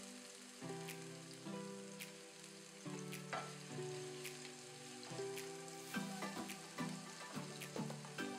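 Vegetables sizzling in hot oil in a pan as they are stir-fried and turned with a wooden spatula, under background music of sustained notes; from about six seconds in the music turns to quicker, plucked notes.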